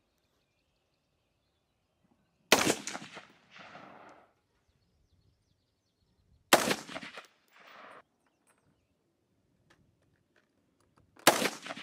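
AR-15 rifle fired three single shots a few seconds apart. Each sharp report is followed about a second later by a fainter, duller sound.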